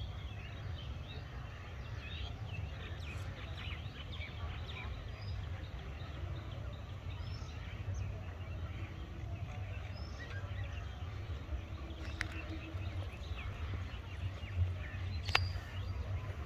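Outdoor ambience: a steady low rumble under scattered short, high chirps of small birds, with two sharp clicks in the last few seconds.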